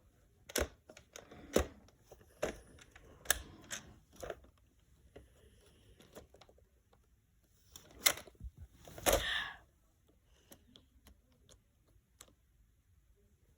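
Plastic clicks and clacks of a Nerf Ultra Strife blaster being handled while its jammed magazine is cleared: a run of sharp clicks about a second apart, then a louder clack and a short rattling clatter near nine seconds in, with a few faint ticks after.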